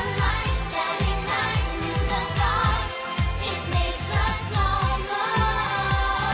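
Pop music with singing over a steady beat and deep bass.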